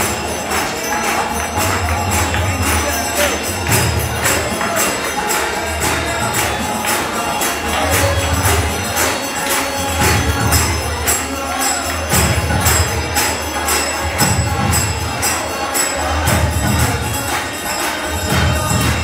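Kirtan music: hand cymbals (kartals) clashing in a steady, quick rhythm over recurring low drum beats.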